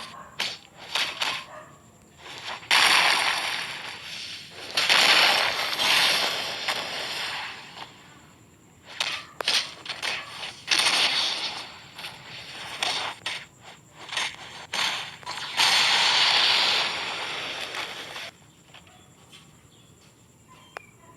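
Scratchy, hissing rubbing noises made with fingers, in bursts of one to three seconds, with sharp clicks and taps in between.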